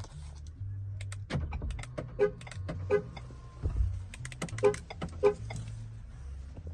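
2022 Ford Expedition's horn sounding the anti-theft panic alarm: four short two-tone honks in two pairs, each pair under a second apart, over clicking and a low rumble.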